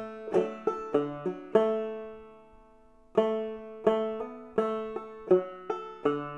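Clawhammer banjo in double D tuning played slowly, one plucked note at a time, each note ringing out. After about five notes a held note dies away for about a second and a half before the playing picks up again.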